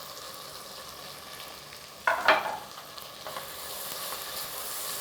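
Onions and spices sizzling in hot ghee in a pan, with a short clatter of a utensil against the pan about two seconds in. The sizzling then grows louder as tomatoes go into the hot fat.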